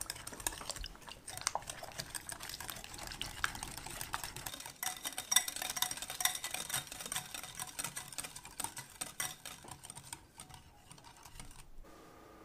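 Stainless wire whisk beating cheesecake batter of cream cheese, sour cream and heavy cream in a glass bowl: rapid clicking of the wires against the glass, which stops abruptly near the end.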